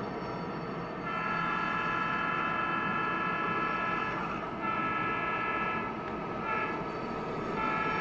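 Sound-system horn of an HO-scale model diesel locomotive blowing a long, long, short, long pattern, the grade-crossing signal, starting about a second in over the locomotive's steady running sound.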